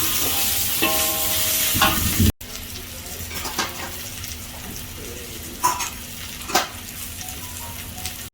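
Okra, beans and potato sizzling as they stir-fry in a pan and are stirred. After an abrupt cut about two seconds in, the sizzle is much quieter, and two sharp knocks of a utensil against the pan come later on.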